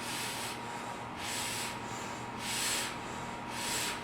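Rhythmic heavy breathing during the air cycle ab exercise: four hissing breaths, about one every second and a bit.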